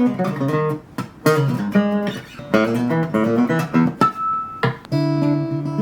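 Background music led by a plucked guitar playing a quick run of notes, settling into a held chord near the end.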